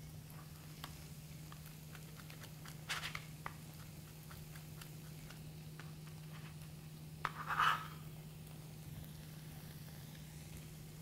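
Chef's knife chopping fresh sage and mint on a plastic cutting board: short sharp taps at about two to three a second, with two louder scrapes, the loudest about seven and a half seconds in. A steady low hum lies underneath.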